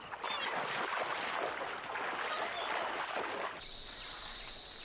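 Asian elephants wading through a shallow river, water splashing and sloshing around their legs. About three and a half seconds in it changes abruptly to a quieter steady high whine over a low hum.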